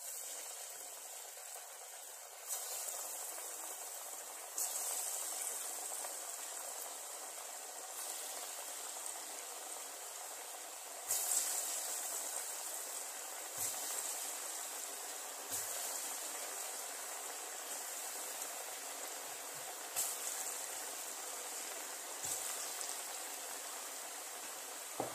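Hot oil sizzling steadily as lumps of ground chana dal dough deep-fry in a pan. The sizzle jumps louder several times as more lumps are dropped into the oil.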